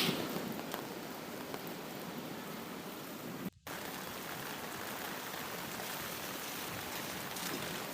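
Steady rain, an even hiss. A rumble of thunder dies away at the start, and the sound cuts out completely for a fraction of a second about three and a half seconds in.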